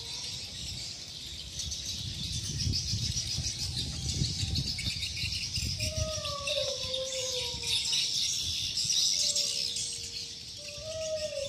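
Outdoor ambience: a steady high-pitched chorus of chirping, with a low rumble underneath. A rooster crows in the distance twice, about six seconds in and again near the end, each crow falling in pitch as it ends.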